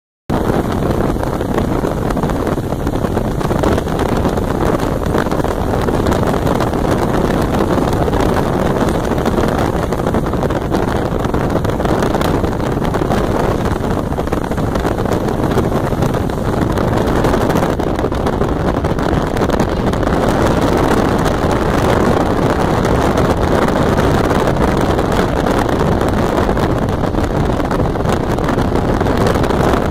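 Steady road and wind noise of a car driving at highway speed, heard from the moving car, with wind buffeting the microphone.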